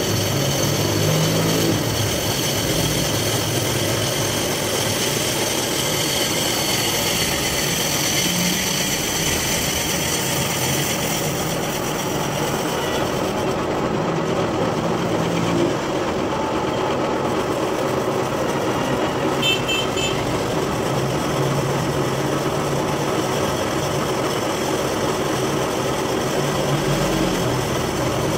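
Metal lathe running steadily with a motorcycle wheel spinning in it: a constant machine hum with a high whine above it, and a short patter of ticks about two-thirds of the way through.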